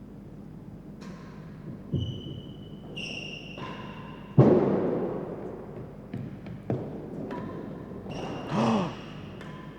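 Real tennis rally in the indoor court: the hard ball is struck with rackets and hits the walls in a few sharp knocks that echo. The loudest knock comes about four and a half seconds in and rings on for over a second.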